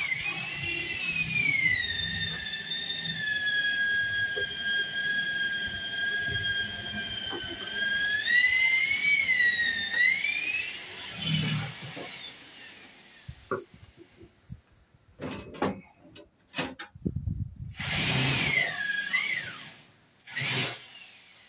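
Cordless drill-driver whining as it backs out the screws of a metal electrical panel cover. The pitch rises at the start, holds steady, then wavers about 8 to 10 seconds in. Clicks and knocks follow as the metal cover is taken off, then a second, shorter whine falls in pitch near the end.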